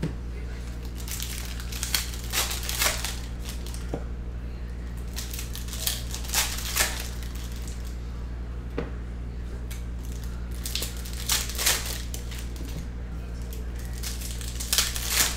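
Retail football trading-card packs being torn open, their wrappers ripping and crinkling in short bursts every few seconds, over a steady low hum.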